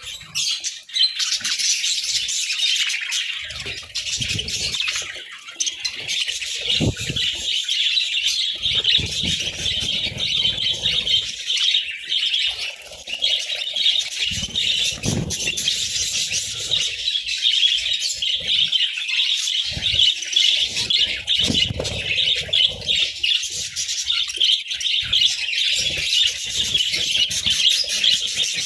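Budgerigars chattering and chirping continuously, many voices overlapping, with a few low thumps in between.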